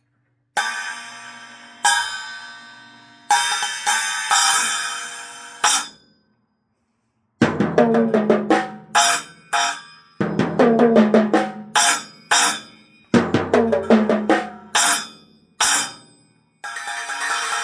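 Small practice drum kit being tested. First come several cymbal strikes left to ring out, then a short pause, then quick fills around the drums with the bass drum, and near the end a cymbal crash rings on.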